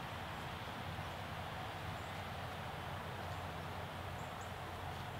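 Steady background hiss with a low hum and a few faint high chirps near the end.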